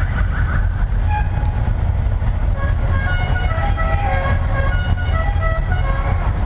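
A steady low rumble from classic cars running at a car meet. In the middle there is a run of short, high-pitched toots.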